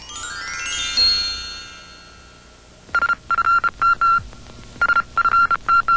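Electronic logo jingle: a rising sweep of chiming synthesizer notes that swells and fades out. About three seconds in it gives way to a single high electronic beep pulsing on and off in short, irregular bursts, like telephone dialing tones.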